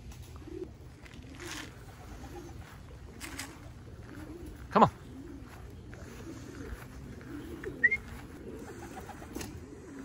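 Domestic racing pigeons cooing over and over around the loft, a low rolling coo repeating throughout. One short, much louder call cuts in about five seconds in.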